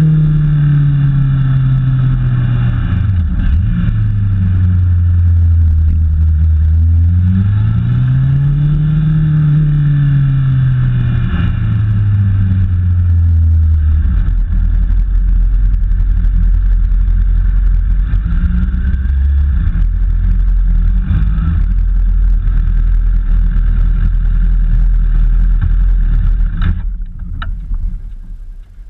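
Motorcycle engine coming off the track: the revs fall away, swell up once and fall again, then settle to a low, steady run. Near the end the sound drops away sharply, followed by a few short knocks.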